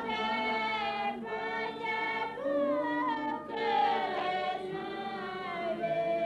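A small group of voices, women's and a child's among them, singing a hymn together in slow, held notes.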